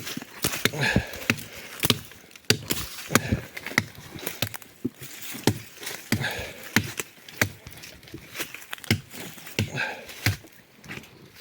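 An axe chopping wood: repeated sharp, irregular blows, about one or two a second, with rustling between them.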